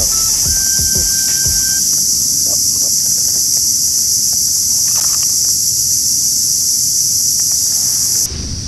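Insects droning: a loud, steady, high-pitched buzz that cuts off suddenly near the end.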